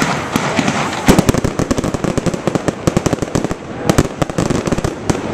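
Fireworks display crackling: a dense, rapid run of many small sharp pops and cracks, which thickens about a second in.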